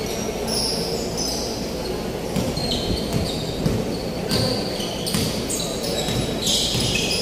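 Basketball bouncing on a hardwood gym floor as it is dribbled up court, with short high squeaks of sneakers on the floor throughout.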